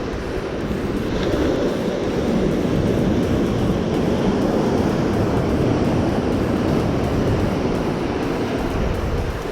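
Sea surf washing in, with wind buffeting the microphone: a steady rushing noise that swells a little about a second and a half in.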